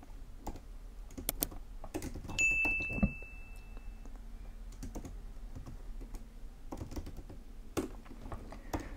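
Typing on a computer keyboard, with irregular key clicks throughout. A single high ding sounds about two and a half seconds in and rings for about a second and a half, and a thump follows shortly after.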